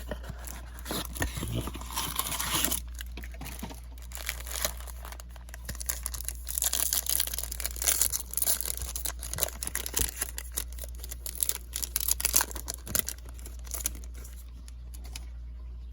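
Plastic wrapping of a Topps Chrome baseball card blaster box and its packs being torn open and crinkled in the hands, a dense crackly rustle that settles down near the end.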